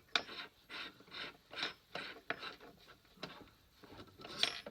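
A quick, irregular string of short scrapes and rattles, about two a second, of a small drill bit being pushed and batted about on a wooden workbench by a cat.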